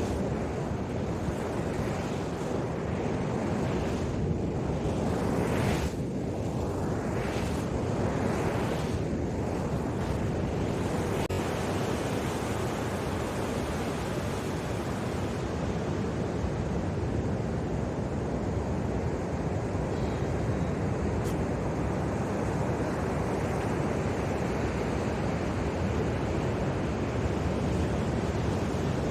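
Surf breaking and washing on the beach, a steady rush with a few swells rising and falling, with wind buffeting the microphone.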